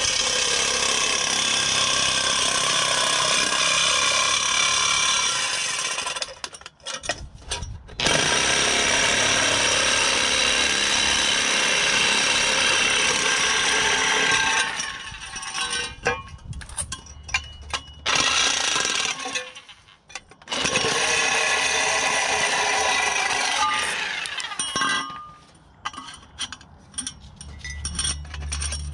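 Reciprocating saw cutting through a 2.5-inch steel exhaust pipe, running in three long stretches with short stops and a few brief stop-start bursts between them.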